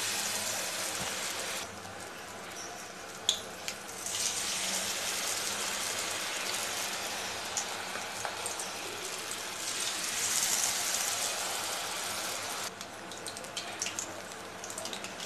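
Batter-coated baby corn deep-frying in hot oil in a kadai: a steady hissing sizzle that drops back about two seconds in, swells again from about four seconds, and eases near the end, with a few light clicks.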